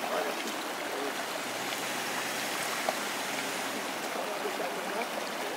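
Steady rush of a shallow creek running over rocks, with a faint low hum in the middle and a single click about three seconds in.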